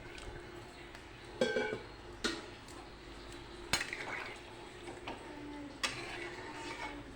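A spoon stirring a curry in a cooking pot, clinking sharply against the pot four times.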